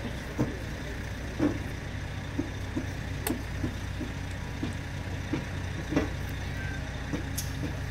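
Heavy machinery engine running steadily, a low hum, with scattered light knocks and clicks, while a passenger railcar is pulled slowly along the track.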